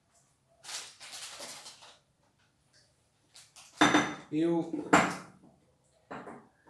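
Kitchenware clattering: a glass bowl and its plastic lid being handled and set down on the counter, with a soft scuff about a second in and louder knocks and clinks around four seconds in.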